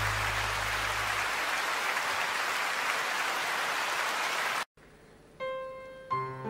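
Audience applause at the end of a song, with the band's last low note dying away in the first second or so. The applause cuts off abruptly about two thirds of the way in. After a moment of silence a piano begins the next song, single notes first, then fuller chords near the end.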